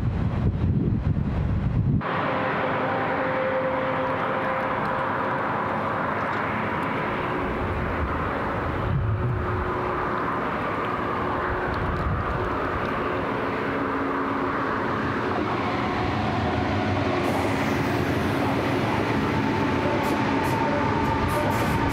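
For about the first two seconds, a low wind rumble on the microphone, cut off abruptly. Then a Deutsche Bahn ICE high-speed electric train running past: a steady rushing rail noise with a faint steady electric whine, turning hissier over the last few seconds as it comes closer.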